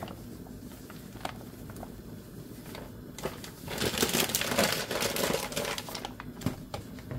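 Flour pouring softly from a paper packet into a plastic bowl, with a few light clicks, then the paper flour packet crinkling louder for about two seconds, starting about four seconds in, as it is handled and put down.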